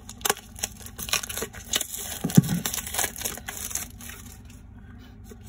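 Plastic shrink wrap crinkling and tearing as it is pulled off a small cardboard box, with a dull knock a little over two seconds in. The rustling dies down about four seconds in.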